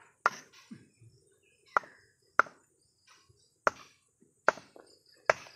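Six sharp chopping strikes, about one a second, of a bolo (machete) cutting into a young jackfruit held on a wooden log.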